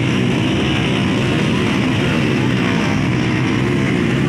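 Dirt bike engine running steadily under throttle as the bike pushes through deep plowed mud.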